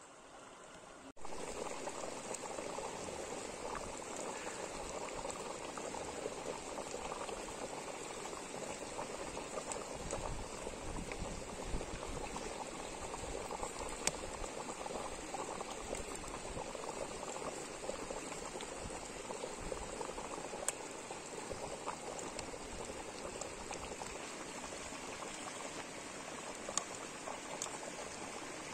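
Pot of abgoosht (lamb stew) boiling steadily, starting abruptly about a second in, with a few sharp pops now and then.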